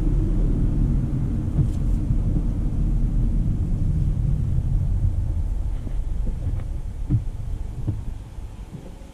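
Cabin noise inside a Volvo XC40 B3 on a wet road: a low tyre and road rumble that fades away as the car slows down near the end, with a few short knocks along the way.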